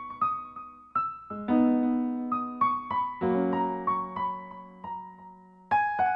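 Gentle background piano music: a slow melody of single struck notes over sustained chords.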